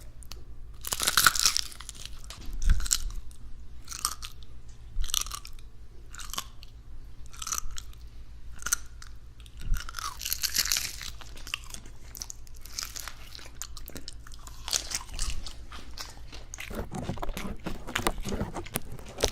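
Close-miked crunching and chewing of food, a crunch about once a second, with longer, louder bursts of crunching about a second in and again around ten seconds in. A faint steady low hum runs underneath.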